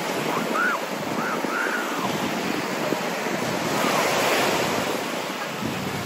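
Small waves breaking and washing up on a sandy beach shore, a steady rush of surf that swells about four seconds in.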